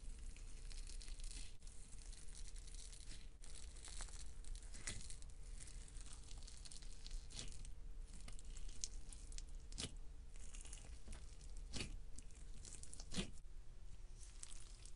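Crunchy slime full of sprinkles and foam beads being poked and squeezed with fingers, giving a soft crackle and crunch with scattered sharp pops.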